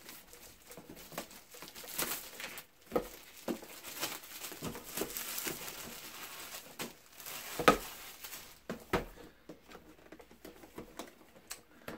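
Clear plastic wrapping being peeled and crinkled off a cardboard product box, with scattered crackles and handling clicks. One sharper knock comes about two-thirds of the way in.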